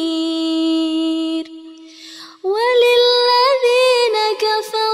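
A woman's voice chanting Quran recitation in melodic tajwid style. She holds the last note of a verse steadily, pauses for about a second, then starts the next verse with an ornamented, rising and falling melody.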